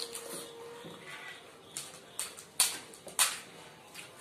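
Crisp fuchka (pani puri) shells being cracked open and crunched by hand and mouth: a few sharp, short crackling snaps in the second half.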